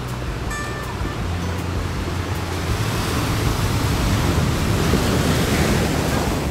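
Ocean surf rushing onto the beach, swelling louder about halfway through and easing off near the end.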